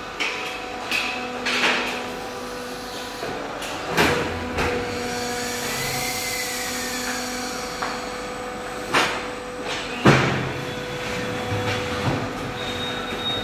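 Automatic fly ash brick plant running: a steady machinery hum with metallic clanks and thuds every second or few, the loudest about ten seconds in.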